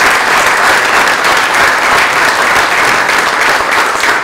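Crowd applauding, a dense, steady clapping of many hands.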